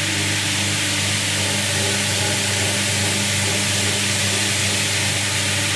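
Electric floor-scrubbing machine running steadily as it strips the topical seal from terracotta tiles: a constant motor hum under a loud scrubbing hiss.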